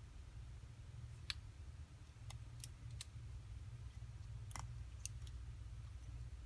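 Faint, scattered small clicks, about seven in all, of a screwdriver tip and tiny screws on the iPhone 6's metal shield plate as the screws go back in, over a steady low hum.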